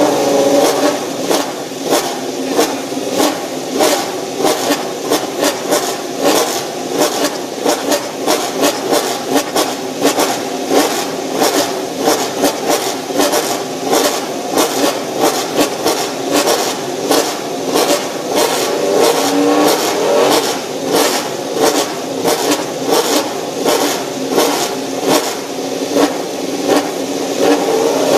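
Suzuki MotoGP racing motorcycles' inline-four engines being warmed up, the throttle blipped again and again so the engines rev up and drop back about once or twice a second over a steady running note.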